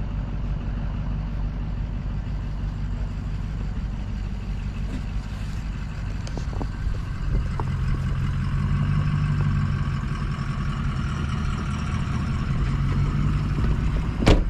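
Vehicle engine running steadily, a low hum that grows stronger about halfway through, with one sharp click near the end.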